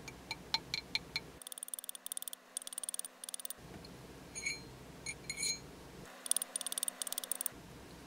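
Small hammer tapping a pure 24k gold band on a steel ring mandrel to work-harden it: light metallic taps, each with a short high ring. Single spaced strokes alternate with two quick runs of rapid taps, one in the first half and one near the end.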